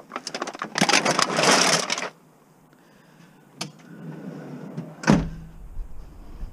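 Clear plastic bag full of empty aluminium drink cans rustling and clattering as it is handled for about two seconds, then quieter. There is a single click, and a sharp thump about five seconds in.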